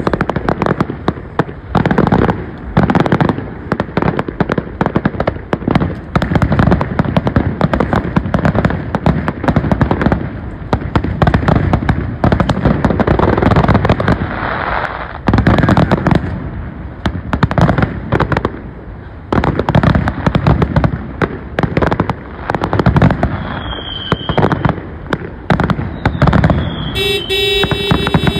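Aerial fireworks display: shell bursts going off in quick succession, one on top of another, with hardly a pause. A brief steady tone sounds near the end.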